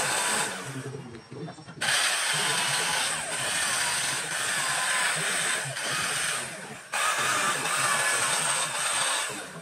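Handheld electric carving tool cutting into rosewood, its motor whine wavering under load. It winds down about half a second in, starts again near two seconds, and stops and restarts briefly near seven seconds.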